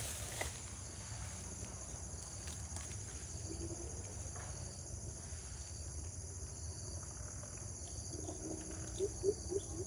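Crickets chirping in a steady high-pitched trill. About eight seconds in, a greater coucal starts a run of deep, evenly repeated hooting notes.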